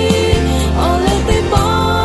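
A Lahu-language pop song: a female voice sings a melody with held, bending notes over a backing band with a steady bass and beat.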